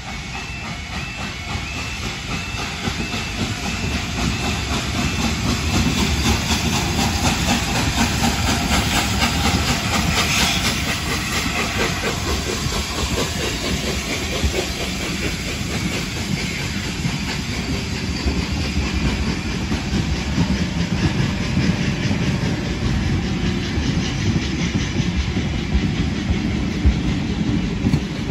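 Level crossing warning alarm sounding in a repeating pattern. Then the steam locomotive Tornado, an LNER Peppercorn A1 Pacific, runs past with a hiss of steam, loudest about ten seconds in. A rake of passenger coaches follows, rumbling through with wheel clickety-clack over the rail joints.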